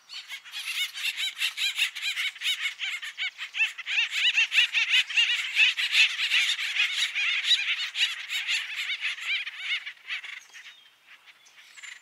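A group of acorn woodpeckers calling together in a rapid, overlapping chorus of repeated waka-waka calls, the call a group gives when it gets together. The chorus dies down about ten seconds in, leaving a few faint calls.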